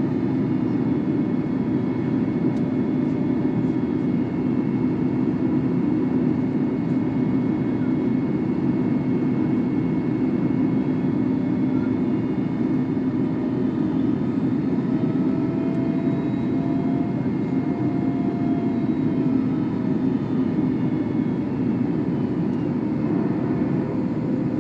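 Steady interior noise of an Airbus A321neo airliner in flight on approach: an even rush of airflow and engine noise with a constant low hum.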